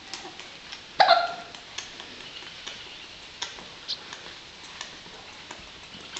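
One loud hiccup about a second in, followed by several faint ticks.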